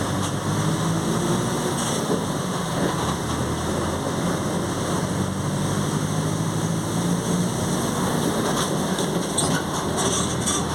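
Mercedes-Benz OF 1722M city bus on the move, heard from inside: a steady diesel drone with the rear differential growling under it.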